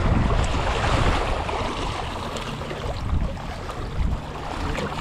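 Sea waves washing and splashing against shoreline rocks, with a louder surge in the first second, over wind buffeting the microphone.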